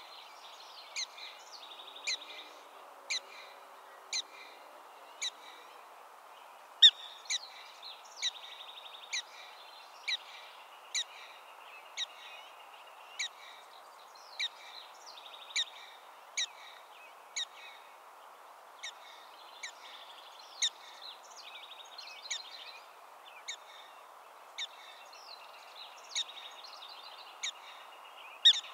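Black-tailed prairie dog barking over and over: sharp, high chirps about once a second, the typical repeated call the colony gives at signs of danger. Behind the barks there is a steady hiss and a faint buzzy trill.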